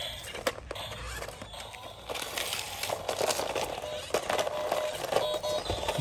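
Toy RC stunt car driving over uneven brick paving and dry leaves: its plastic wheels clatter, click and crackle over the bricks. The car's built-in electronic music plays through a small speaker.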